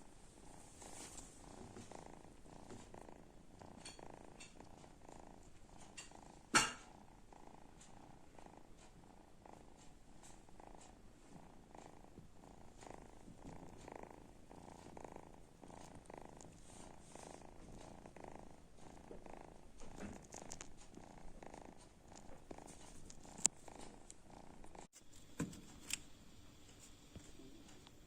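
Sleeping kitten snoring softly in an even rhythm of about two breaths a second. One sharp click stands out about six and a half seconds in, and a few lighter clicks come near the end.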